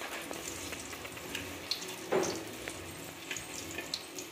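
Batter-coated banana fritters (bajjis) frying in hot oil in an aluminium kadai: a steady sizzle with scattered small crackles and pops. A brief louder bump about two seconds in.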